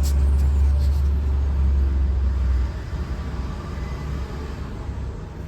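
Low steady vehicle rumble that drops off sharply about two and a half seconds in, leaving a quieter rumble, with a couple of faint clicks at the start.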